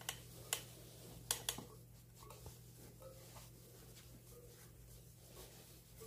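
Steel spokes of a BMW F850GS spoked wheel being tapped one after another to check their tension by ear, each giving a short metallic ping. A few sharper taps come in the first second and a half, then fainter pings follow.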